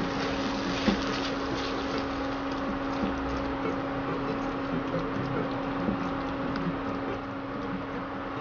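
Prawns frying in oil with tomato-onion masala in a non-stick kadhai: steady sizzling with small crackles, as a silicone spatula stirs and scrapes through the pan. A steady low hum runs underneath.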